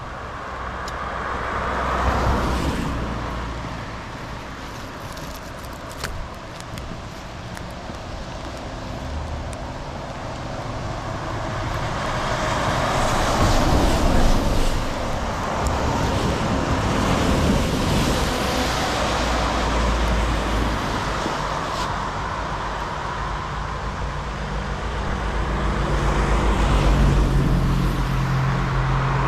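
Cars passing on wet roads, their tyre hiss swelling and fading several times, over a steady hiss of rain. A low engine hum joins near the end.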